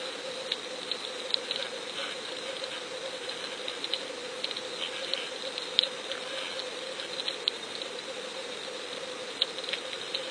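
Underwater sound from a submerged fishing camera: a steady hiss and a low hum, with irregular sharp clicks and crackles scattered throughout.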